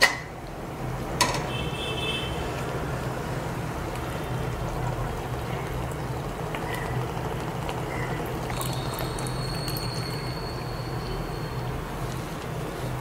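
Pot of sago boiling in sugared water, with milk poured into it from a jug, a steady liquid noise. A short knock about a second in.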